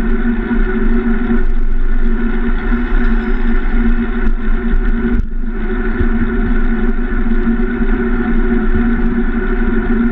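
Steady wind and road noise picked up by a handlebar-mounted camera on a bicycle riding along a highway, loud and unchanging, with one brief dip about five seconds in.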